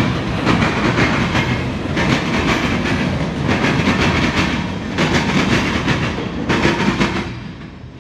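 Freight train of gondola cars loaded with steel pipe rolling past, its wheels clattering over the rail joints again and again. About seven seconds in, the last cars go by and the sound falls away.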